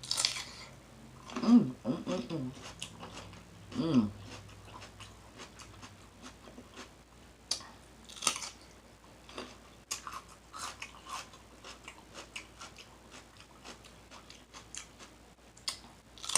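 Close-miked chewing: wet mouth smacking and irregular crunchy clicks from bites of food.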